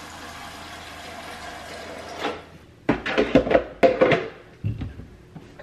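Water from a refrigerator's door dispenser running steadily into a plastic coffee-maker water tank, stopping a little over two seconds in. Then a burst of plastic knocks and clicks as the tank is handled and fitted onto the coffee machine.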